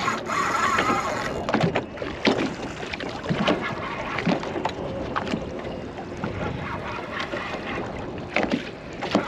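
Choppy water slapping against the hull of a small aluminum boat, with irregular knocks and wind on the microphone.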